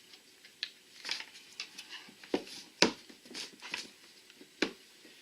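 Hard plastic clicking and knocking as a transducer mount is worked into a kayak's scupper hole: a string of irregular sharp taps, the loudest about three seconds in and another near the end.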